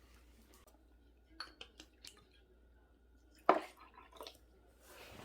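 A few light clinks and knocks of tableware: dishes, cutlery and glasses being handled. The loudest knock comes about three and a half seconds in.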